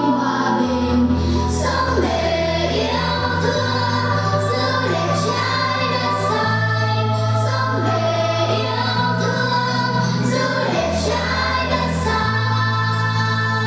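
Choir singing a song with instrumental accompaniment and a steady bass line.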